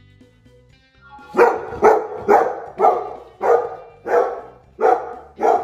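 Chocolate Labrador retriever barking loudly, about eight barks in quick succession starting a second in, roughly two a second, over faint background music.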